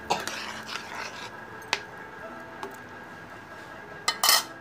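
Fish curry in an iron karai, with spatula scraping in the pan during the first second or so, a sharp click a little later, then a faint steady hum, and a short loud noise near the end.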